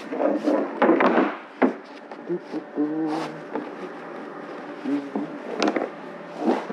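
Handling knocks and clicks as a wooden straight-edge is set on a fibreglass panel and fixed with quick-grip bar clamps: a few sharp knocks among softer rubbing and scraping.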